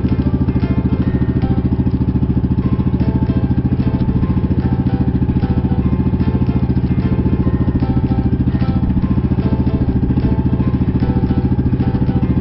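Pump boat's engine running steadily under way, with a fast, even pulsing beat.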